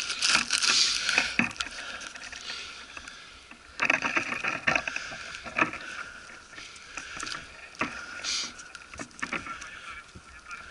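Irregular crunching and rustling of a player moving on foot, with clothing and gear brushing and scraping close to the microphone, loudest in the first second or so.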